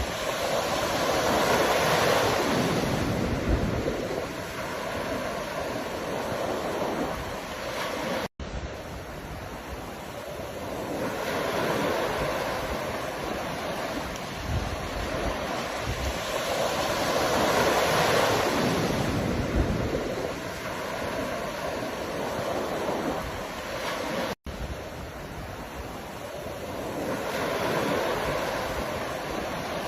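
Ocean waves breaking and washing on a shore, the surf swelling and fading as each wave rolls in. The sound cuts out for an instant twice.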